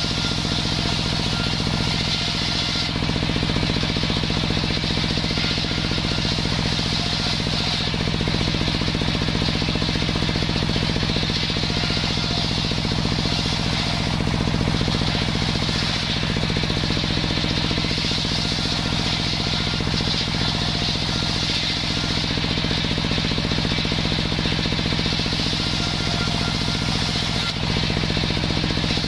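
Table-mounted circular saw ripping sengon wood into battens: a steady machine drone under the blade's high cutting whine, which eases briefly a few times between passes.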